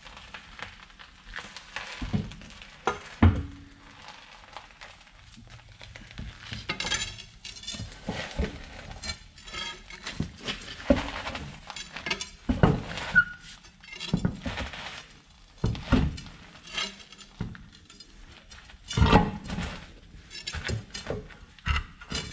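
Tools and metal parts being handled during wheel-end work: irregular metallic clinks, clanks and knocks, a second or so apart, a few of them ringing briefly.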